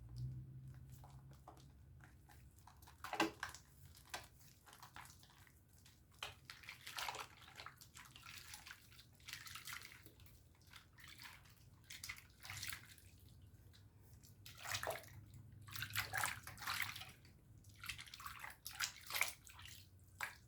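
A Dove soap bar being lathered with water: irregular wet squishing and rubbing swishes, some louder than others.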